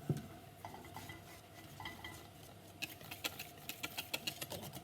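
Spoon or fork stirring pancake batter in a jug, a few scattered knocks at first, then from about three seconds in a quick run of clinks against the jug's side, about five a second.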